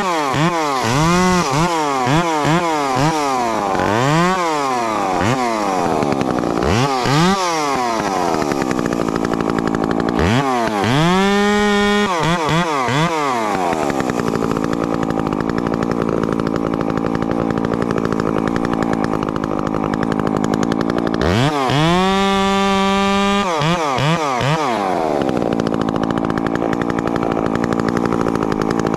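Husqvarna 350 two-stroke chainsaw, with a pipe fitted, blipped at the throttle over and over, revving up and falling back in quick succession; then it is twice held at full revs for a couple of seconds, dropping back to idle between, showing quick throttle response.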